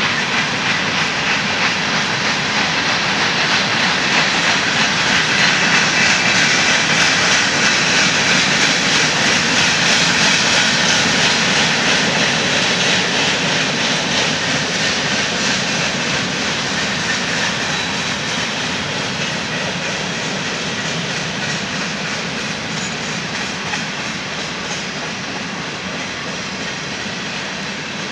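Covered hopper cars of a freight train rolling past, a steady roar of steel wheels on rail that swells slightly and then slowly fades.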